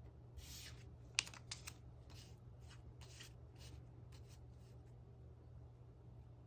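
Quiet paper and stationery handling while decorating a diary page: a few short rustling swishes of paper and one sharp click or snip about a second in, then only a steady low hum.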